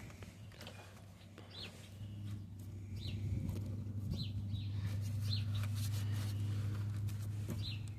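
A bird chirping repeatedly, short high calls about once a second, over a steady low hum that grows louder from about two seconds in.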